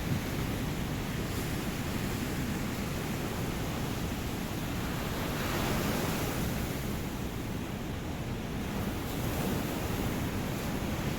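Ocean surf washing steadily, with one wave swelling and breaking a little past midway.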